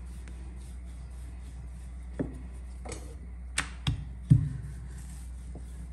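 Wooden rolling pin working dough on a stone countertop, with about five sharp knocks of wood on the counter in the second half, the loudest about four and a half seconds in. A steady low hum underneath.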